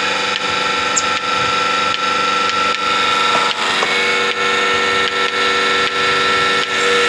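Milking machine running: a steady motor hum with the pulsator clicking regularly, about two to three times a second.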